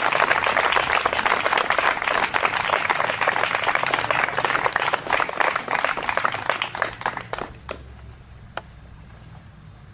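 Audience applauding, the clapping dense at first, then dying away after about seven seconds into a few last scattered claps.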